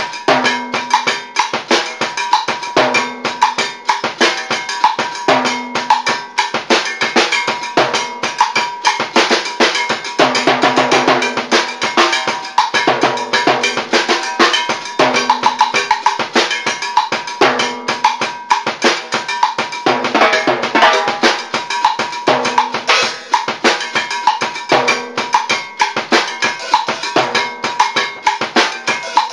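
Timba groove on timbales combined with a drum kit: sticked strokes on the timbale shells and heads, a mounted block and cymbals over bass drum, in a phrase that repeats about every two and a half seconds. It gets busier around ten and twenty seconds in.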